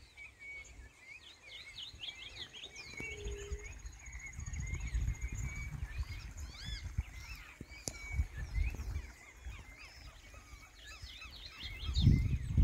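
Several small birds chirping and twittering, with many quick rising-and-falling notes, over an uneven low rumble that swells near the end.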